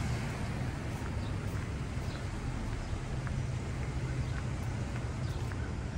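Small-town street ambience: a steady low rumble of traffic, with faint, irregular light clicks scattered through it.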